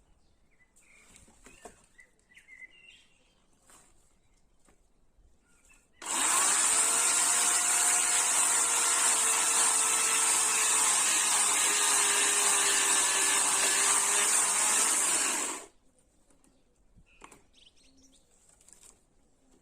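Chainsaw running steadily for about ten seconds, starting suddenly and cutting off suddenly, with faint bird chirps before and after.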